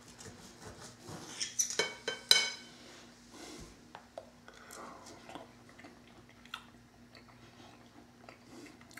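Steel knife and fork clinking and scraping on a ceramic dinner plate while cutting a pork chop, with a cluster of clicks and one sharp ringing clink a little over two seconds in. Afterwards only a few small ticks and soft chewing.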